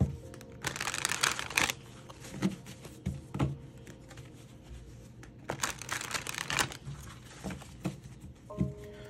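A tarot card deck being shuffled by hand: two rapid bursts of cards riffling and slapping together, each about a second long, one near the start and one around the middle, with scattered light taps of cards in between.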